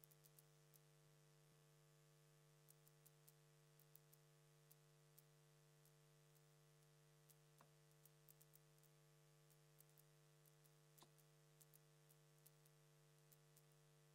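Near silence: a faint steady electrical hum with a few very faint scattered ticks.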